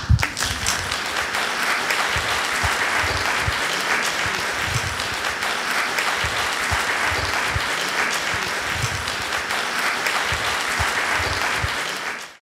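Audience applauding, a steady dense clapping that drops away near the end.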